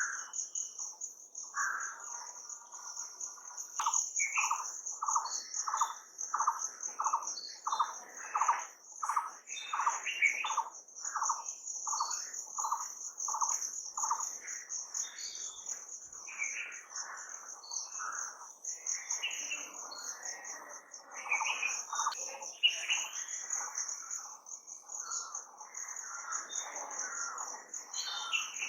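Birds calling against a steady, high insect trill. One bird repeats a short low note about twice a second for around ten seconds, then other, more varied calls take over.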